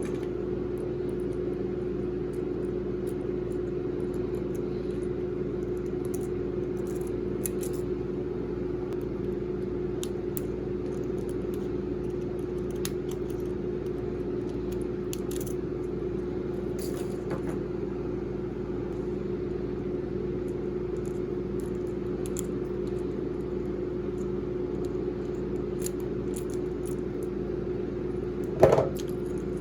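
A steady low hum with one constant tone, with scattered faint light clicks and small metallic taps over it.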